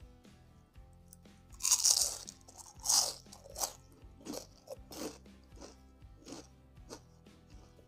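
Close-miked bite into a crispy deep-fried Indonesian snack (gorengan), with two loud crunches about two and three seconds in. Then steady crunchy chewing follows, about one and a half crunches a second.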